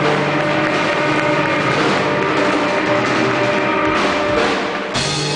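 Live blues band playing: electric guitar over bass and drums, with sustained notes and an abrupt change in the sound near the end.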